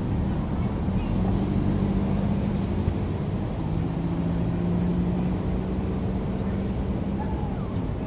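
Steady drone of motor engines, a low hum holding one pitch, joined about halfway through by a second, slightly lower one. A faint short bird chirp comes near the end.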